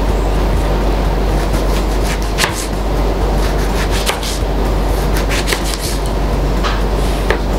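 Knife cutting an orange into wedges on a plastic cutting board: about half a dozen sharp, separate taps of the blade on the board, a second or so apart, over a steady low hum.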